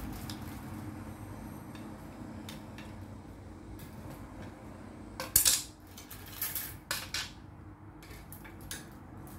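Clothes hangers clinking and clattering as they are handled and sorted, with a few sharp clacks. The loudest clack comes about five seconds in, and more follow a second or two later.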